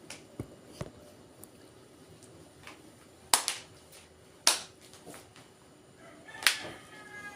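A few scattered sharp clicks and knocks, the loudest about three and a half, four and a half and six and a half seconds in.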